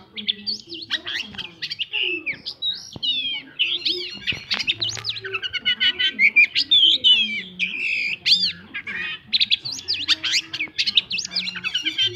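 Long-tailed shrike (cendet) singing hard in a fast, unbroken stream of chirps, whistles and sliding notes, mixing in mimicked phrases of other birds.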